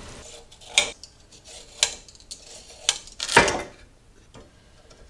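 A chef's knife chopping carrots into large chunks on a wooden cutting board: a few sharp knocks about a second apart, the loudest about three and a half seconds in.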